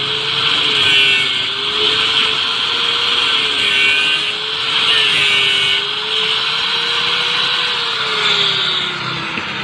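Handheld angle grinder cutting through the steel bead wire of a car tyre at the edge of an alloy rim: a steady motor whine that wavers slightly under load over a hissing grind. Near the end the whine falls in pitch and stops.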